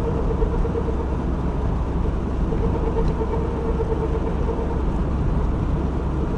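Worn front wheel hub bearing humming inside a moving car's cabin, a pulsing drone over road and tyre noise. The hum fades out as the steering is turned slightly, returns, and fades again.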